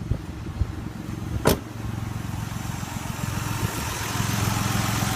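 2002 Ford Escape's 3.0-litre V6 running steadily at idle, with a sharp click about a second and a half in and a hiss that rises through the second half.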